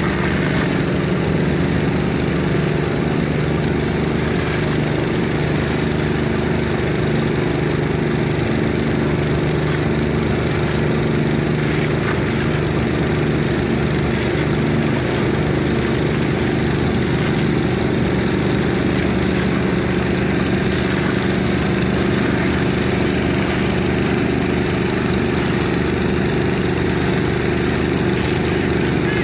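An engine running steadily at constant speed, a low even drone that does not change.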